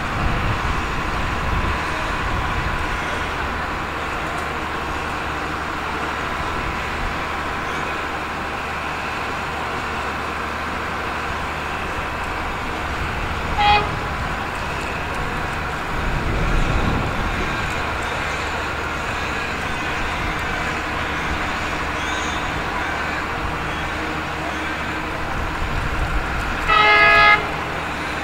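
Diesel locomotive horn giving a short toot about halfway through and a longer, louder toot near the end, over a steady background rumble.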